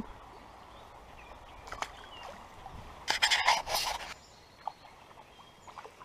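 Water splashing for about a second, starting about three seconds in, as a small smallmouth bass is let go back into the creek; a few faint clicks come before it.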